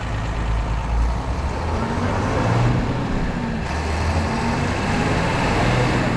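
The Mercedes-Benz OF-1721 bus's OM-366LA straight-six turbodiesel pulling under load. The revs climb, dip about three and a half seconds in, and climb again, as with a shift in its six-speed manual gearbox.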